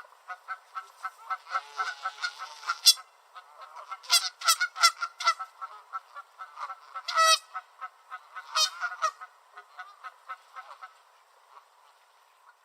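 A pair of Canada geese honking at each other in quick, agitated runs of several honks a second, with a few louder calls among them. The honking thins out and fades near the end.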